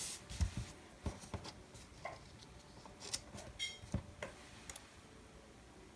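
Faint scattered clicks and taps of hands and tweezers handling paper planner pages and pressing stickers down, a few each second, loudest near the start.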